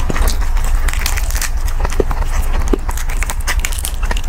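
Close-miked crunching and chewing of crispy deep-fried pork skin, with fingers tearing at the crackling: a run of many small crackles and clicks, over a steady low hum.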